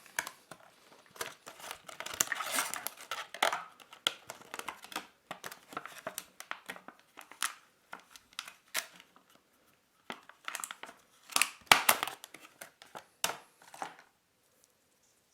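Plastic packaging tray crinkling and clicking as earphones are pried out of it: an irregular run of rustles and sharp snaps that stops near the end.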